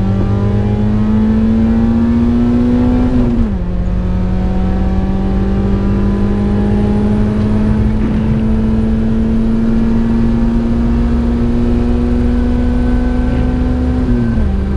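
Car engine heard from inside the cabin at full throttle, its pitch climbing. The pitch drops sharply about three and a half seconds in as it shifts up a gear, then climbs slowly through the next gear, with another upshift near the end.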